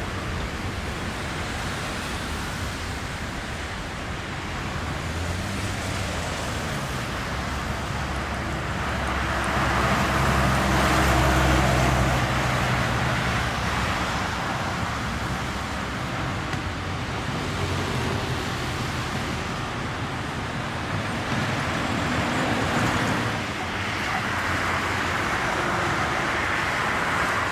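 Jet engines of a Boeing 777-200ER (Rolls-Royce Trent 800 series) heard across the airfield as a steady rumble and rush of noise. It swells about ten seconds in and again near the end as the aircraft moves.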